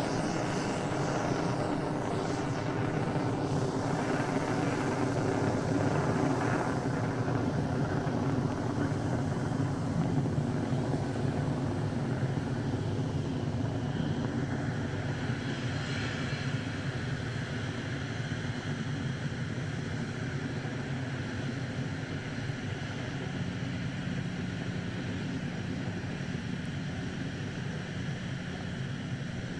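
Firefly Alpha rocket's first stage with its four Reaver engines, a steady rumbling roar during ascent, slowly fading as the rocket climbs away.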